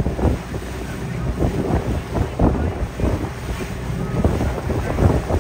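Wind buffeting the microphone aboard a moving boat, in uneven gusts, over the wash of sea water and a low steady hum underneath.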